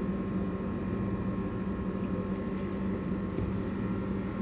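A steady low mechanical hum, such as a fan or appliance running, with no distinct knocks or clatter.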